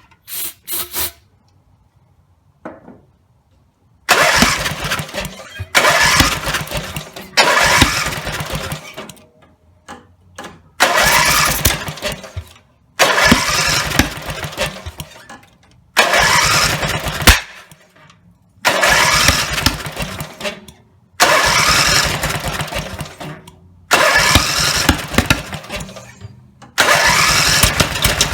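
Briggs & Stratton 17 HP riding-mower engine being cranked by its starter in about ten short tries of roughly two seconds each, with quiet between. It does not stay running, in keeping with a rebuilt engine that won't start. A few faint clicks come before the first try.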